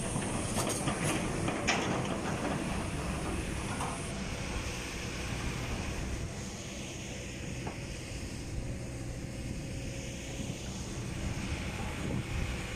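Kobelco SK210HD crawler excavator's diesel engine running steadily as the machine slews over a rock pile. A few sharp knocks in the first two seconds, and a high hiss that stops about four seconds in.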